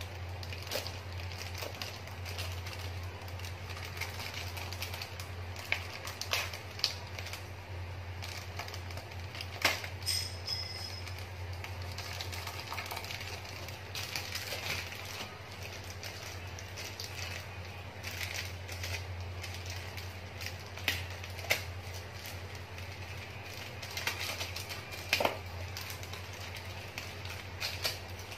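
Scattered light clicks, taps and rustles from a plastic packet of spring-roll (lumpia) pastry wrappers being handled, heard over a steady low hum.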